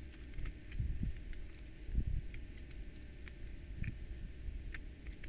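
Faint handling noise: light scattered clicks and soft knocks as circuit boards and ribbon cables are fitted into the Yamaha M4 mixer's plastic casing.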